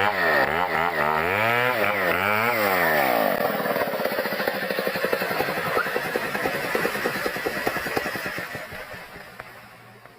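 Two-stroke chainsaw running, its pitch rising and falling several times, then dropping to a low, uneven chugging that fades out near the end.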